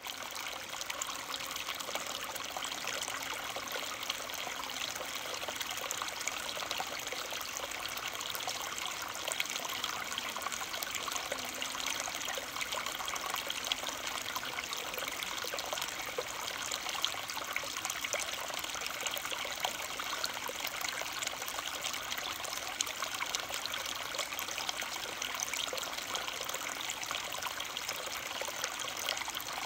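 Steady trickle of running water, an even crackling hiss that does not change.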